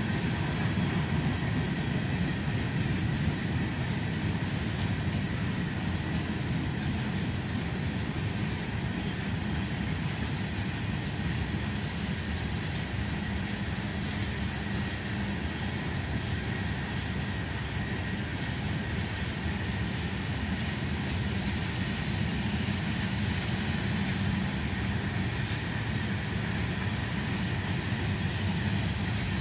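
Freight train cars (tank cars, boxcars and covered hoppers) rolling past at steady speed: a continuous, even rumble of wheels on the rails.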